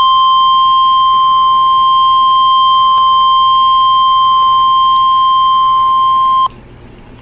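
Weather radio's 1050 Hz warning alarm tone: one loud, steady, high-pitched beep through the radio's speaker that cuts off suddenly about six and a half seconds in, leaving faint hiss. The tone announces that a warning message is about to be broadcast.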